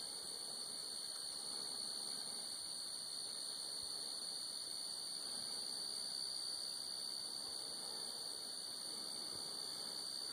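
Steady high-pitched insect chorus, an unbroken drone that holds the same pitch and level, over a faint low hiss.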